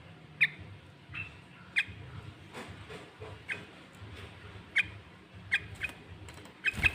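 Sooty-headed bulbul calling: a string of short, sharp chirps, about ten at irregular intervals, with the loudest pair near the end.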